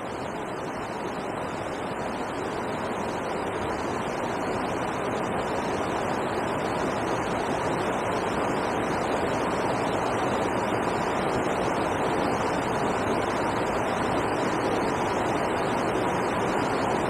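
Steady rushing of river water pouring over a weir, growing slightly louder over the first few seconds.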